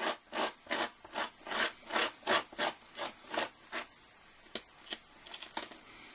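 Loose model railway ballast grit being brushed along the track and sleepers in quick, even back-and-forth scraping strokes, about three a second, stopping about four seconds in, followed by a few light clicks and taps.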